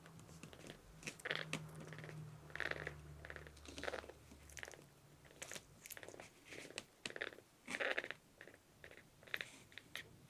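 Faint, irregular wet smacks and clicks from a newborn kitten's mouth, about one every second or so, close to the microphone as it is held and offered a nursing bottle.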